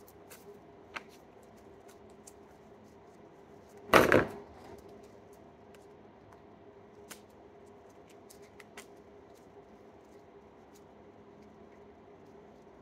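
Soft, scattered clicks and crackles of slime being squeezed and stretched between the fingers, with one loud short thump about four seconds in.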